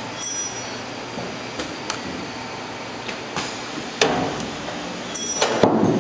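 QTP1800F automatic pallet stretch-wrapping machine running: a steady mechanical noise from the rotating turntable, with stretch film pulling off the roll onto the pallet. Several sharp clicks and knocks sound over it, one about four seconds in and a louder cluster near the end.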